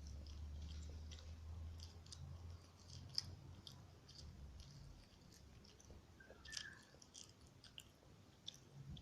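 Faint chewing of chicken rice close to the microphone: soft mouth clicks and smacks scattered throughout. A low hum fades out after about two and a half seconds.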